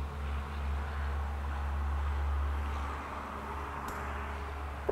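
Steady low background hum, as from a fan or ventilation running, with a light click about four seconds in and another at the very end.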